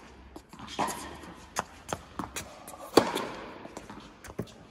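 Tennis ball struck back and forth in a rally: sharp racket hits and ball bounces on a hard court, the loudest hit about three seconds in, each followed by a short echo of a large indoor hall.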